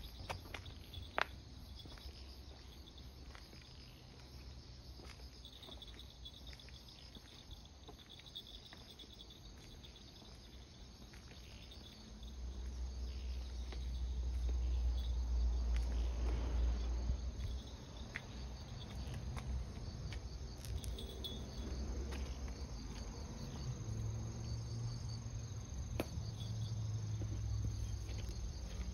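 Insects chirping in a steady, pulsing high trill, with a low rumble swelling up in the middle that is briefly the loudest sound.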